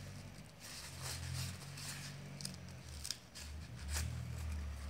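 Paper towel rustling and metal pastry tubes clicking as baked puff-pastry rolls are twisted off their forms, with a few sharp clicks near the end, over a steady low hum.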